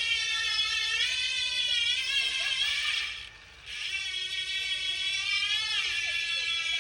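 Loud buzzing ratchet of a KORE wheelset's rear freehub, its pitch rising and falling with wheel speed. It cuts out for about half a second a little past the middle, then buzzes on.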